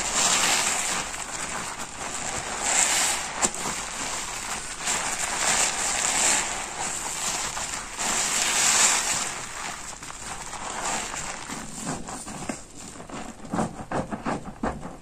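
A stiff, porous car sponge squeezed by hand in thick soap suds, giving a dense wet crackling of foam that swells with each squeeze, about every three seconds. Near the end the sound thins to separate crackles as the hands squeeze foam alone.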